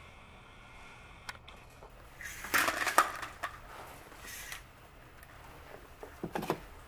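Handling noise inside the CNC router's enclosure: a loud cluster of rustles and knocks about two to three seconds in, a softer rustle, then a short clatter near the end as a hand reaches in toward the carved workpiece on the machine bed. The router's spindle is not running.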